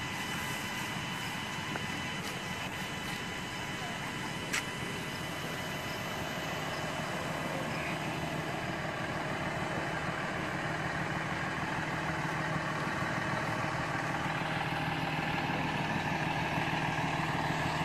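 Fire truck engine idling, a steady drone that grows gradually louder, with a low hum strengthening near the end. A single sharp click sounds about four and a half seconds in.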